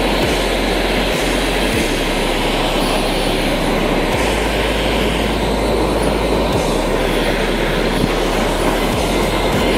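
Gas blow torch flame running steadily against a table-tennis paddle as its rubber face catches fire and burns: a loud, even rushing noise.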